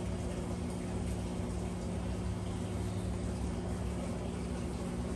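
Steady low mechanical hum of a running motor, with a constant tone.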